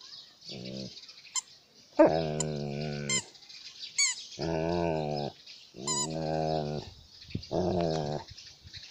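Alaskan malamute growling playfully as it plays with a toy, in about five low, drawn-out grumbles, each up to about a second long. A few short high squeaks come between them.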